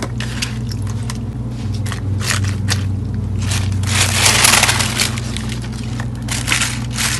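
Wet mustard green leaves rustling and crackling as hands grab and turn them in a plastic colander, with a louder stretch of rustling about four seconds in. A steady low hum runs underneath.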